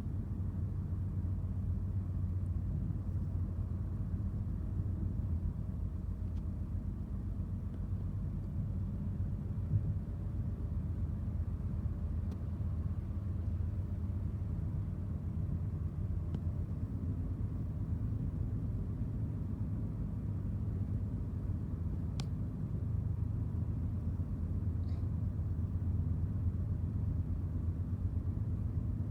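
Steady low rumble of a Ford car driving, heard from inside the cabin: road and engine noise, with a couple of faint clicks.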